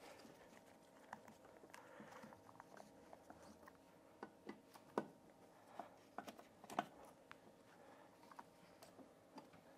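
Faint, scattered clicks and light taps of a No. 2 Phillips screwdriver snugging a floor receptacle's mounting screws into a metal box. The sharpest clicks come about five seconds in and again near seven.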